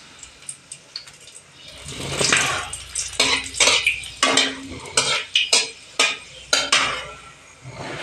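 A long metal spatula scraping and knocking against an aluminium kadai, about a dozen strokes from about three seconds in, some leaving a short metallic ring, while dried red chilli and bay leaf are stirred in hot oil. A short swell of sizzling comes about two seconds in as the broken chilli goes into the oil.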